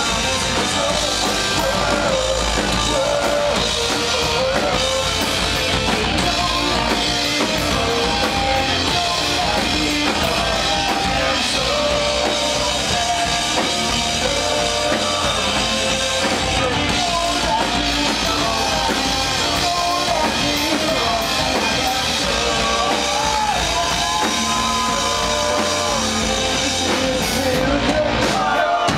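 Live rock band playing: a male lead vocalist singing over electric guitars, bass guitar and a drum kit, loud and steady.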